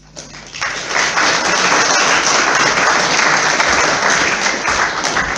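Audience applauding: clapping that builds up within the first second, holds steady, and starts to fade near the end.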